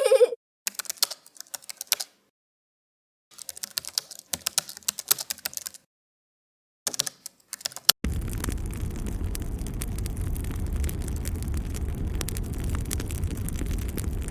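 Sound effects: three runs of rapid clicking with silent gaps between them, then a steady low rumbling noise starting about eight seconds in.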